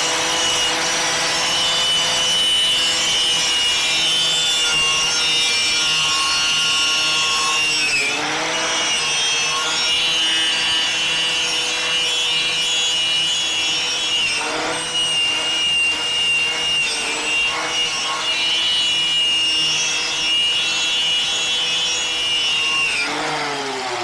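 Electric angle grinder with a wire brush, running at speed and scouring rust and paint off the moped frame's metal, with a dense scraping hiss over a steady motor whine. The motor dips briefly twice, about eight and fourteen seconds in, and winds down near the end.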